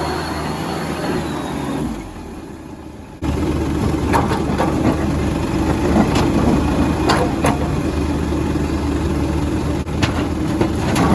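A heavy machinery diesel engine running steadily, with sharp metallic knocks and clanks over it. The sound drops away for about a second around two seconds in, then comes back abruptly.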